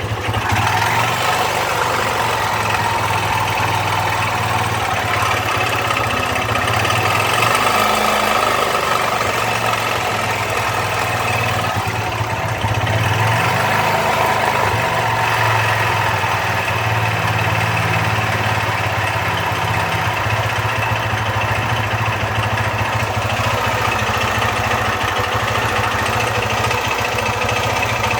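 Honda CG 125 Fan's single-cylinder four-stroke engine idling steadily with a strange noise in the engine.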